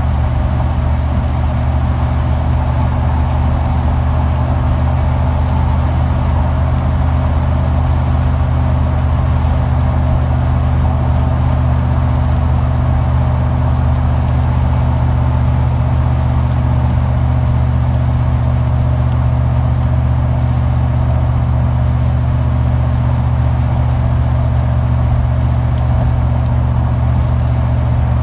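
Car driving at a steady speed: a constant low drone of engine and road noise that holds the same pitch throughout.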